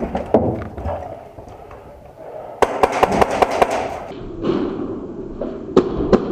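Airsoft gunfire: a rapid burst of about ten sharp cracks in a second, partway in. Scattered single sharp cracks come before it and two near the end.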